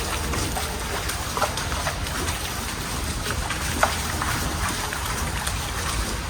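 Steady low rumble of air or water moving through an underground tunnel, with scattered light clicks and taps, a sharper one a little before the four-second mark.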